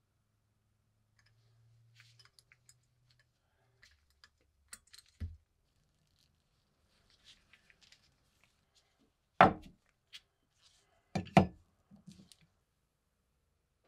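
Small scattered clicks and taps of a small screwdriver and gloved hands handling the steel socket of a British WW2 spike bayonet, with a soft thud about five seconds in. Near two-thirds through come two loud knocks about two seconds apart on the wooden workbench.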